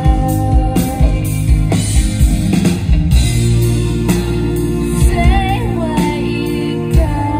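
Live indie rock band: a woman singing over electric guitar and drums, heard from the audience.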